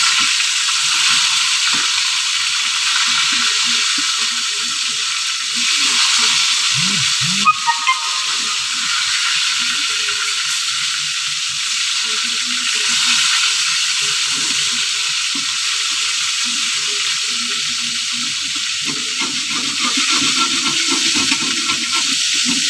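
Pieces of fish shallow-frying in a little oil in a pan: a steady sizzling hiss, with one sharp clink about seven and a half seconds in.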